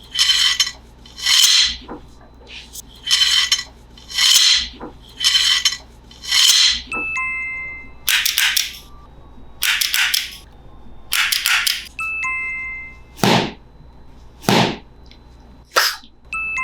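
A sequence of hissing swooshes, one about every second and a half, with short bell-like dings after several of them and two sharper hits near the end, set out like a music track.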